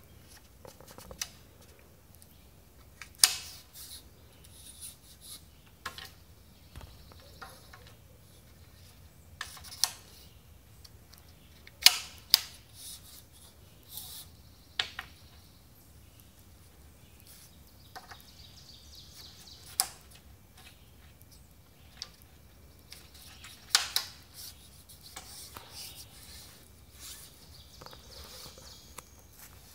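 Scattered sharp clicks and knocks at irregular intervals, about a dozen, a few of them loud.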